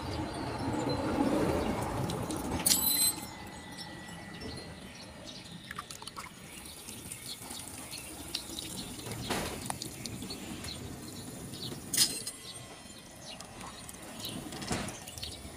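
Water churning and splashing as a small electric in-tank fuel pump runs submerged in a tub, throwing up a jet of water that falls back down. The splashing is loudest in the first few seconds. A couple of sharp knocks come about three and twelve seconds in.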